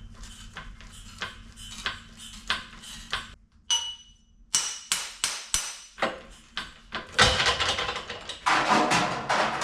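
Light, regular hammer taps on sheet steel, about one and a half a second, working a narrow flange over. One blow near the middle rings out metallically, and the tapping turns into a denser, louder metal clatter over the last couple of seconds.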